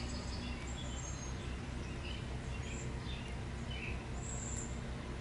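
Garage room tone: a steady low hum, with a few faint, short high chirps.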